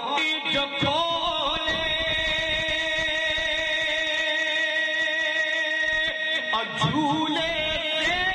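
Male naat reciter singing into a microphone, holding one long steady note for several seconds, with melodic turns at the start and again near the end.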